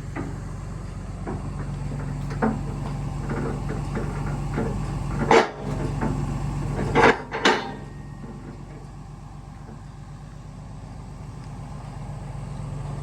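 Safety latches on a truck's folding rear liftgate clanking into place: a few sharp metal knocks, the loudest about five and seven seconds in, over the steady low hum of the truck's engine idling.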